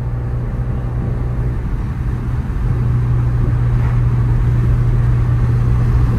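Steady low drone of a Mk7 Golf GTI's turbocharged four-cylinder engine and road noise, heard from inside the cabin while driving. It grows a little louder about two and a half seconds in.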